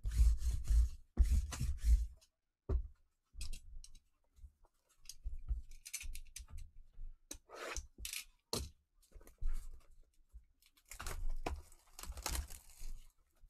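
Shrink-wrap being cut and torn off a sealed box of Panini Obsidian basketball cards: short crackling, scraping and tearing bursts of plastic film. Heavy handling knocks against the table come in the first two seconds.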